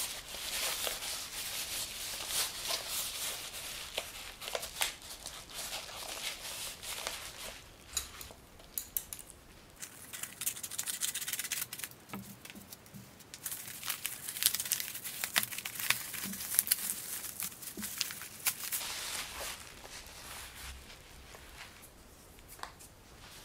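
Padded kraft-paper mailer being torn open and handled: tearing and crinkling paper with rustling and small clicks, in two busy stretches, dying down near the end.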